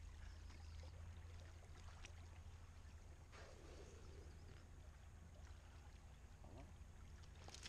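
Near silence: a steady low rumble with a few faint knocks.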